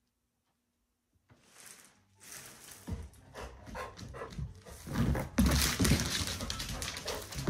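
Silence for about a second, then a golden retriever's paws clicking and thudding on a hardwood floor, mixed with the rustle of a black plastic trash bag. The rustling and knocking grow louder in the second half.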